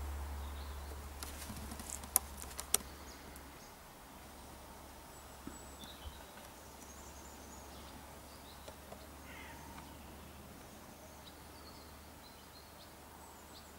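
Quiet outdoor ambience with faint, scattered bird calls. Two sharp clicks come about two seconds in, and a low rumble in the first few seconds drops away.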